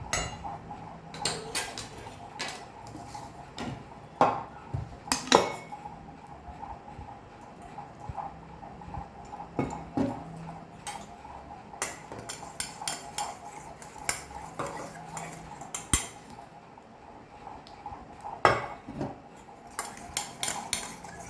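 Metal utensil clinking and tapping against a bowl while hand-feeding formula for a baby macaw is measured out and mixed, with irregular sharp clinks, the loudest two about four and five seconds in. A faint steady hum lies underneath.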